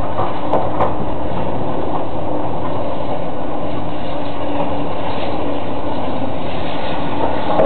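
Heavy machinery running steadily with a loud, even rumble, with a couple of sharp clanks about half a second in and another near the end.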